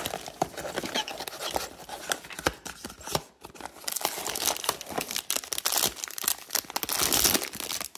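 Blind-box packaging being opened by hand: cardboard and a paper card rustling, then from about four seconds in a louder, dense crinkling and tearing of the foil bag that holds the figure.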